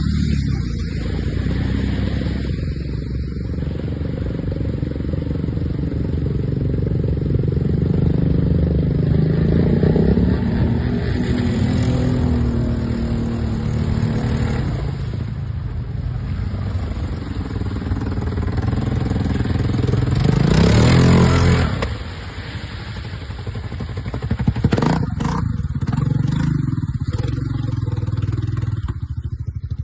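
An off-road vehicle's engine revving and labouring, its pitch rising and falling, then climbing to a peak about three-quarters of the way through and dropping off suddenly, with a few knocks near the end.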